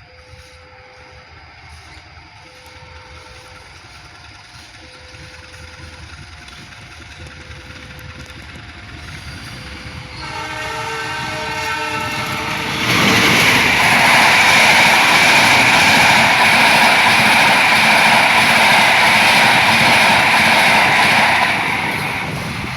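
Taksaka passenger train approaching and passing, with a faint two-tone warning signal alternating about once a second as the train draws near. About ten seconds in, the locomotive's horn sounds. From about thirteen seconds the train passes close by loudly, and it eases off near the end.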